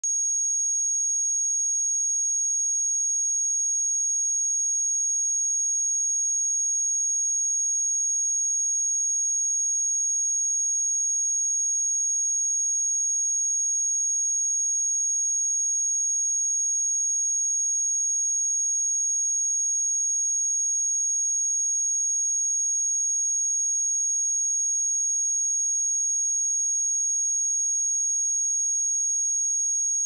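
Pure 6578 Hz sine-wave test tone, a single high-pitched steady whistle held at a constant level without change.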